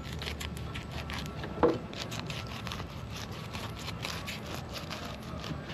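A fillet knife slicing along a red snapper's flank, crackling and scraping through the large scales and skin in quick, irregular clicks, with one louder short sound about a second and a half in.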